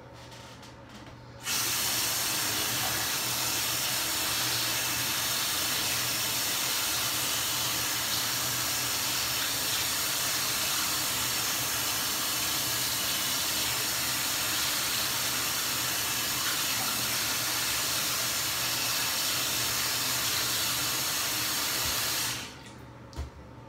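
Water running hard into a bathtub, rinsing the scrubbed tub. It comes on suddenly about a second and a half in, stays steady, and shuts off about a second before the end.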